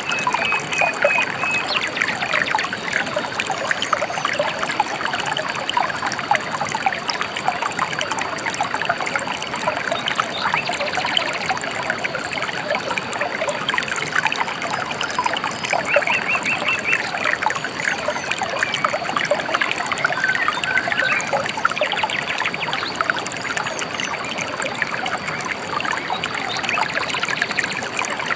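Gently flowing river, a steady babbling trickle of water. A few brief bird chirps sound over it: a short trill at the start, another about two-thirds of the way through, and a lower one soon after.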